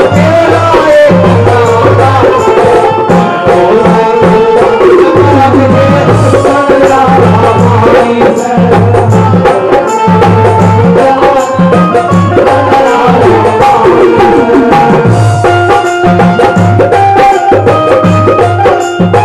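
Haryanvi folk band playing an instrumental interlude: a gliding melody line over a steady, regular drum beat, with no singing.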